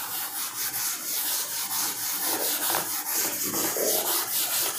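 Cloth duster wiped across a chalkboard, a dry rubbing in quick back-and-forth strokes as the chalk is erased.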